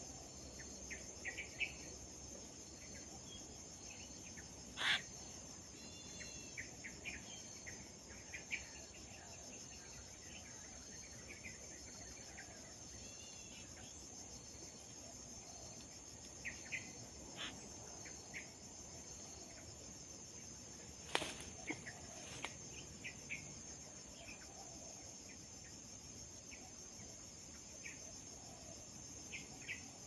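A steady, high-pitched chorus of insects shrilling through the whole stretch, with scattered short chirps and faint clicks. Two sharp clicks stand out, about five seconds in and again about twenty-one seconds in.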